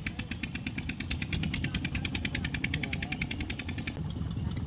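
Small engine running with a fast, even knocking of about a dozen beats a second over a low rumble; the knocking stops about four seconds in, leaving the rumble.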